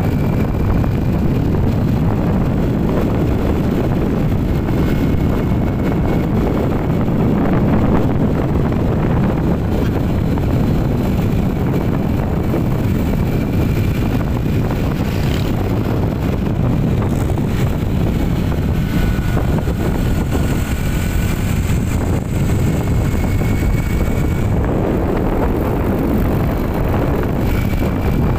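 Steady rumble and road noise of a moving vehicle.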